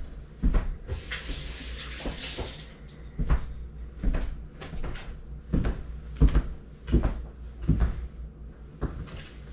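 Kitchen tap running briefly, about a second in, as a hand is rinsed, amid a series of low thumps and knocks from moving about the kitchen.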